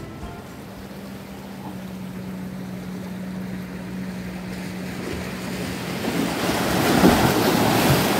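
Boat engine running with a steady hum over wind and water noise. About two-thirds of the way through, the hum fades and a louder rush of wind and water takes over.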